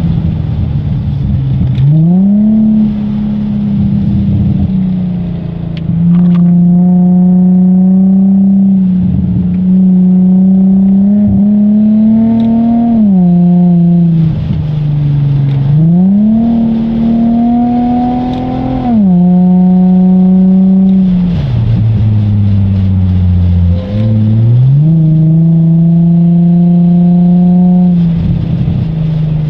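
Car engine heard from inside the cabin while lapping a race track, its pitch climbing under throttle and falling back several times as the driver lifts and brakes for corners.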